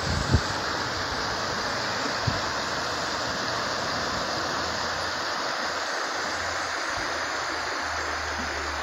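Shallow, fast river running over a stony bed, a steady rushing of water over riffles. A couple of brief low thumps come near the start.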